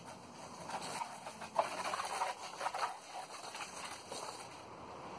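Water from a garden hose spraying and pattering on plastic water jugs, irregular and splashy, easing off near the end.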